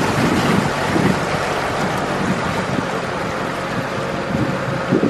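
A small passenger boat underway: a steady engine hum under the rush of water and wind on the microphone.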